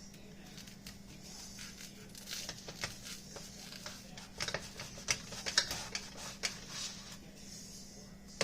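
Kitchen utensil scraping and tapping against a bowl and toast as chicken salad is spread for a sandwich, in a string of irregular clicks that thickens a couple of seconds in.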